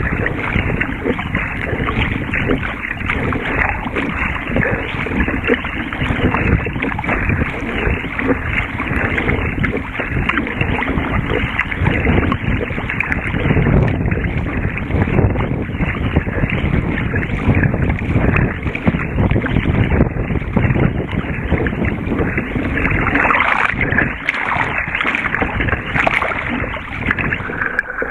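Wind buffeting the microphone, mixed with choppy water slapping and rushing along a surfski's hull as it is paddled through rough water; a steady dense rush without pauses.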